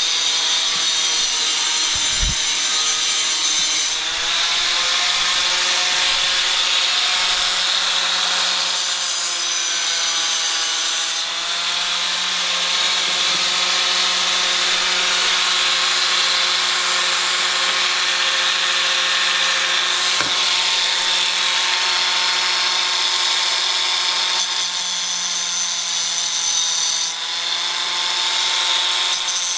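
A power tool running continuously while cutting off the mounting tabs on a fuel line so it lines up with a Honda F22C fuel rail. Its steady whine wavers slightly under load and eases off briefly a few times.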